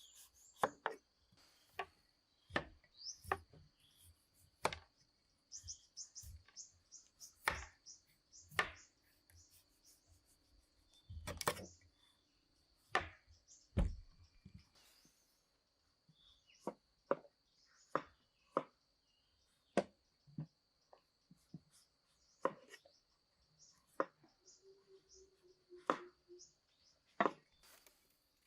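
Knife chopping food, sharp irregular strokes about one a second, with a steady thin high whine behind.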